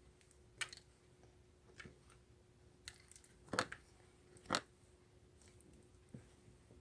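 Irregular handling clicks and taps, about six of them, the two loudest a little past the middle, over a faint steady hum.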